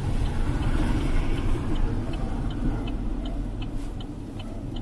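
A car's turn-signal indicator ticking evenly, about two to three ticks a second, over the low rumble of the engine running as the car rolls slowly to pull in and park.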